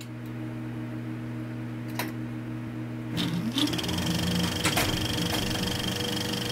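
Film projector sound effect: a steady motor hum, then about three seconds in the motor spins up with a rising tone and settles into a fast mechanical rattle, with a few sharp clicks.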